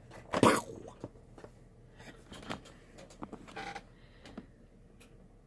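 Handling noise on a workbench: a loud scrape or rustle about half a second in, then scattered small clicks and light scrapes.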